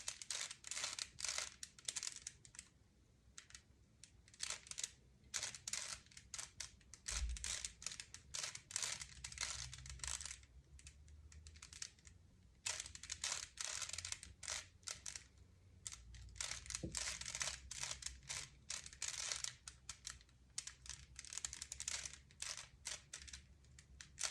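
Rubik's cube being turned by hand: quick runs of plastic clicks and rattles as the layers are twisted, with a couple of short pauses.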